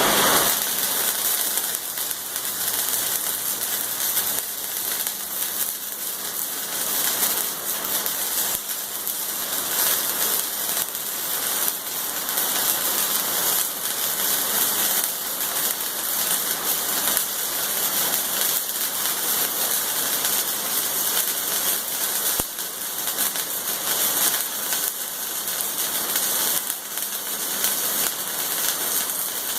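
Electric arc welding on steel plate: the Hobart welder's arc crackling and sizzling steadily as a long bead is run.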